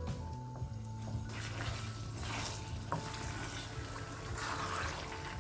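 Tinned tomato base frying in oil in a stainless steel pan, sizzling and bubbling as a wooden spoon stirs and scrapes through it, with a sharp tap about three seconds in.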